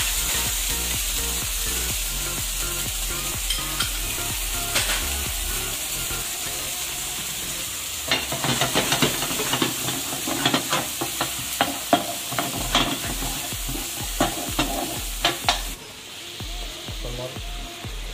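Onion, garlic, lentils and beans sizzling in oil in a frying pan. From about eight seconds in, a spatula stirs them with a quick run of knocks and scrapes against the pan. The sound drops off sharply near the end.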